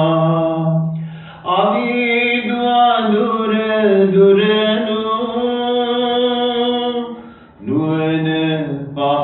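A man chanting into a microphone in a slow, drawn-out melodic style, holding each note long. There are three phrases, with short breaks for breath about a second in and near the end.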